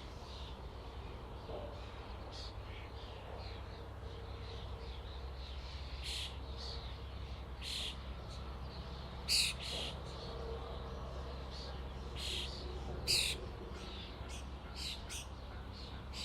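Flock of common starlings calling: a scatter of many short, harsh high calls, two of them louder about nine and thirteen seconds in, over a steady low rumble.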